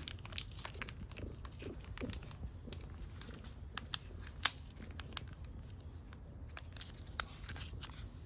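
A cat eating, with irregular crunching and chewing clicks.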